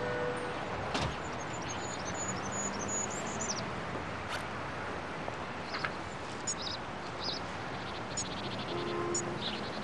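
Outdoor ambience: a steady background hush with small birds chirping now and then, including a quick run of chirps a couple of seconds in. A single click comes about a second in.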